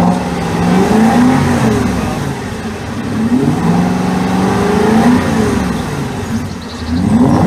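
Aston Martin V8 Vantage's V8 engine revved up and down several times from idle with its exhaust valves closed in the factory quiet mode: less throaty, lacking a little rasp.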